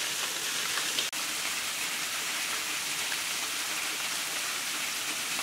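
Steady hiss of a thin tamarind sauce simmering and bubbling in a large wok. The sound drops out for a moment about a second in.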